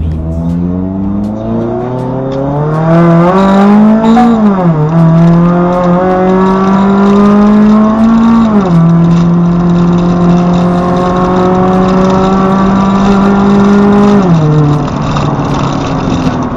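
Supercharged Mazda MX-5 Miata ND four-cylinder through a Borla exhaust with custom 4-into-1 headers, accelerating hard. The engine note rises and drops sharply twice as the automatic transmission upshifts, about four and eight seconds in, then holds a steady cruise until the revs drop again near the end.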